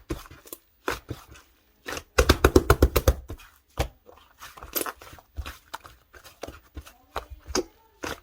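Yellow slime being squeezed and poked by hand, making wet clicks and pops, with a fast loud run of crackling clicks about two seconds in and a faint squeak near the end.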